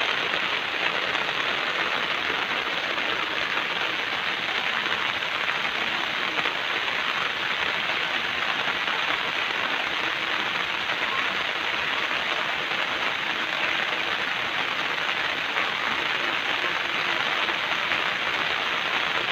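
Steady rain falling on dense garden shrubs and their leaves: an even, unbroken hiss.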